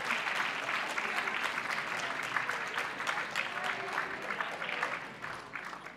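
An audience in a hall applauding with dense clapping, which thins out and dies away near the end.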